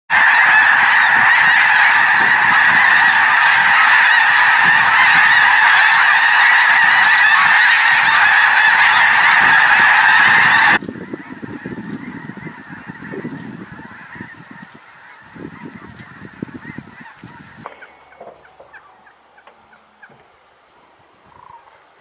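A huge flock of snow geese calling: a loud, dense chorus of overlapping honks. About 11 seconds in it cuts off abruptly to fainter, scattered calls with low rumbling, which get quieter still near the end.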